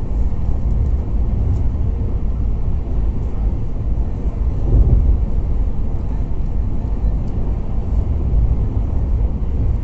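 Steady low rumble of a train running at speed, heard from inside the moving carriage, swelling briefly about halfway through.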